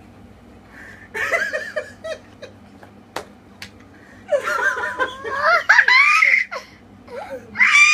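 People laughing in bursts: a short fit of laughter about a second in, a longer one from about four seconds, and another near the end. A few light clicks fall in between.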